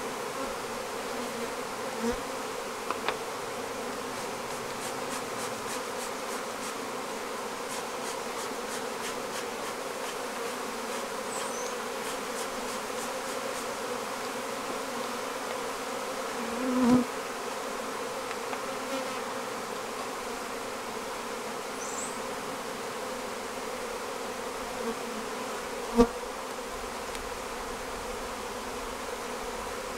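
Honeybee colony in an opened hive buzzing with a steady, even hum: a stirred-up colony that has not yet calmed down. A dull thump comes about 17 seconds in, and a short sharp knock, the loudest sound, about 26 seconds in.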